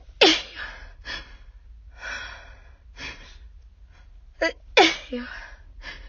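A person sneezing twice, about four and a half seconds apart, each sneeze preceded by a quick gasping intake of breath, with heavy breathing in between: a sneezing fit while sick.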